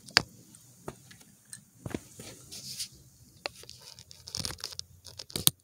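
Handling noise from a phone camera: fabric rustling and scattered clicks and scrapes as it comes out of a pocket, with a sharp knock just after the start and another near the end.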